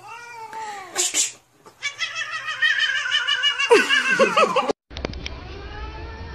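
A cat meowing, then a long, wavering yowl from about two seconds in that lasts nearly three seconds, with a brief harsh burst just after the first second. The sound cuts off suddenly near the end, leaving a low hum.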